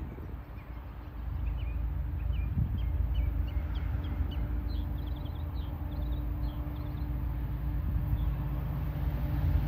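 Small birds chirping in a quick run of short calls, over a low, steady rumble and hum that gets a little louder about a second in.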